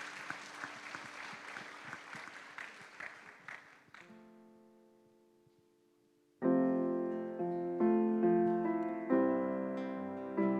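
Congregation clapping over a held keyboard chord for about four seconds, which then dies away to the quiet chord alone; about six seconds in, a piano comes in loudly, playing slow chords.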